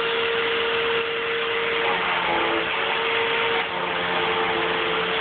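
Vacuum cleaner running steadily, a constant whine over its rushing motor noise.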